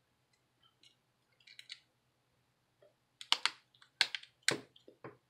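Small plastic internal part of an LG K120 phone being pressed into the phone's plastic frame: a few faint ticks, then a run of sharp plastic clicks in the second half as it snaps into place.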